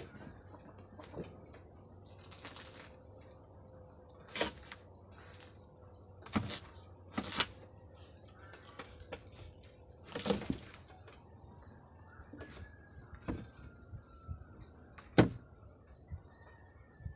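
A kitchen knife cutting up a ripe jackfruit on a banana-leaf-covered table: separate knocks and cutting sounds a second or more apart as the blade goes through the rind and hits the table beneath, the loudest knock near the end.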